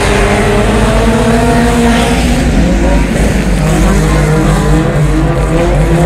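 Engines of Honda Civic EG hatchback dirt-track race cars, four-cylinders running hard, their pitch rising and falling over and over.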